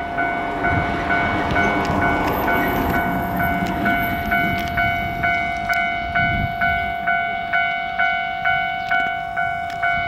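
Electronic railway warning bell dinging about twice a second over a steady tone, with the low rumble of an approaching freight train hauled by a JR Freight EF210 electric locomotive.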